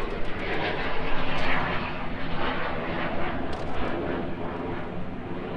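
A steady engine drone, loudest about a second in and then slowly fading.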